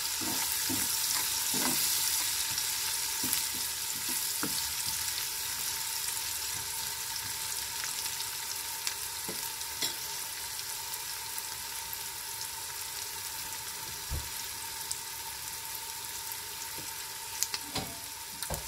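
Chopped onions, green chillies and curry leaves sizzling steadily in hot oil in a frying pan, with a spatula scraping and clicking against the pan in the first few seconds and a few scattered clicks later on.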